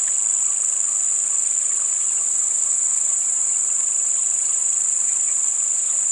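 Steady, high-pitched insect chorus: a continuous shrill drone that does not let up.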